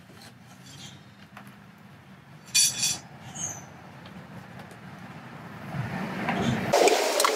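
Handling noise of plastic parts: a sharp clack about two and a half seconds in, then rubbing and knocking that grows louder near the end as the transducer's cable is worked into the PVC pipe body.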